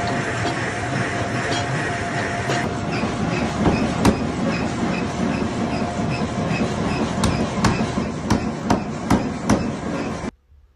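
A forging press hums steadily, then a large mechanical power hammer runs with a regular clatter and strikes a hot hammer head in sharp blows, six in quick succession in the last few seconds. The sound cuts off suddenly shortly before the end.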